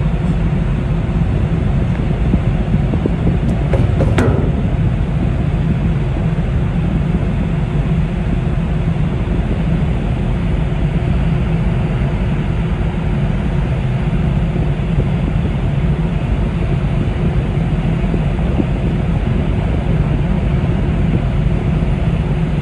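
Steady low rumble and hum of a large car ferry's engines and deck machinery, heard from its upper deck while moored. A single short knock about four seconds in.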